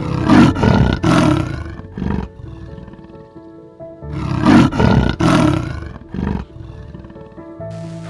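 A big cat roaring in two bouts, each made of two loud rough roars and a shorter grunt after them, over background music with steady held tones.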